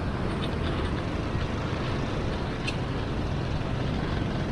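Steady drone of road traffic, with vehicle engines running.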